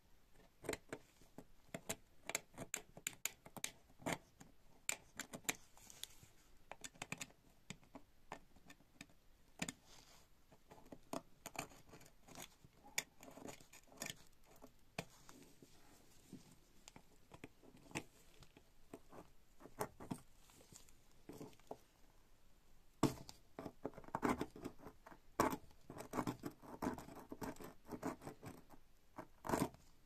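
Steel tool scraping and flaking rust off a corroded pocket knife: irregular small clicks and scratches, growing denser and louder in the last several seconds.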